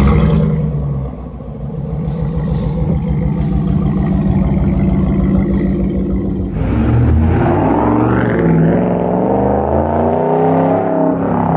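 Ram Rebel pickup with an AWE exhaust starting up with a sudden loud burst, then idling with a deep, throaty exhaust note. About six and a half seconds in, the engine revs, its pitch rising and falling, as the truck pulls away.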